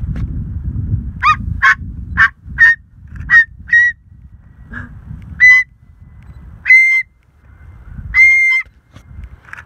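White cockatoo barking like a dog: a quick run of about six short, sharp barks, then three longer, louder barks spaced a second or more apart.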